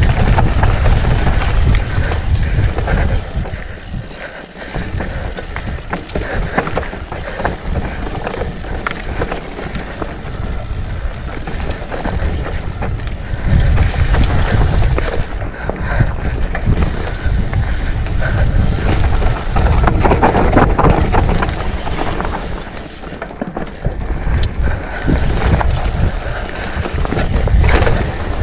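Mountain bike riding down rocky dirt singletrack: wind buffeting the camera microphone over tyres rolling on dirt and stones, with the bike rattling and clicking over the bumps. The noise eases briefly about four seconds in and again shortly before the end.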